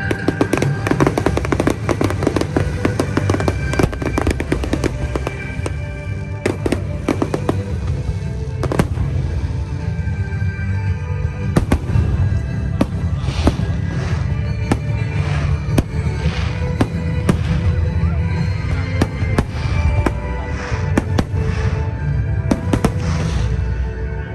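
Aerial fireworks bursting and crackling over music: a dense run of sharp cracks in the first few seconds, then scattered bangs and several fizzing crackle showers later on.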